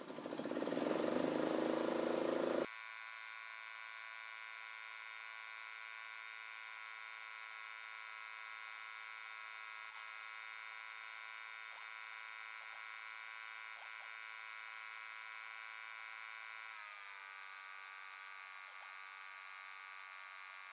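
A loud rush of noise for the first couple of seconds cuts off abruptly. It gives way to an engine running at a steady speed, a steady buzzing hum that drops slightly in pitch about 17 seconds in, with a few faint clicks.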